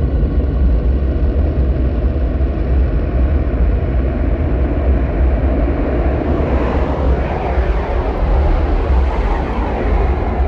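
Electronically augmented bass clarinet played through loudspeakers as a deep, noisy rumbling drone with no clear pitch. About six seconds in, a brighter rushing layer swells up, then eases off near the end.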